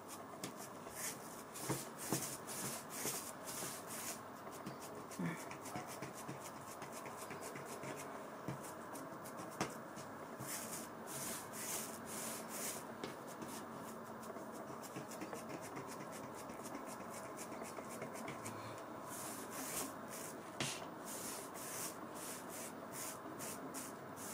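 Hands rolling a log of semolina dough back and forth on a worktop: soft, repeated rubbing and brushing strokes, coming in clusters with short pauses between them.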